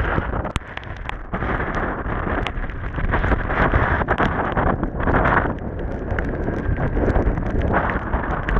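Wind buffeting the microphone in a loud, rough rush, with irregular knocks and clatter scattered through it.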